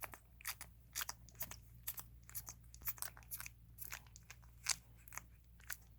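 Newborn puppies suckling from their mother: an irregular run of wet clicks and smacks, several a second.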